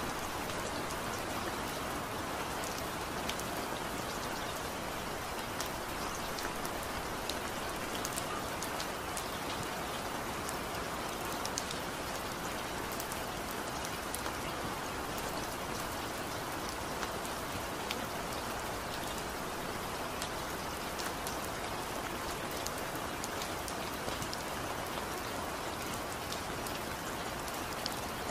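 Steady rain falling on leafy plants: an even hiss dotted with many separate small drop ticks.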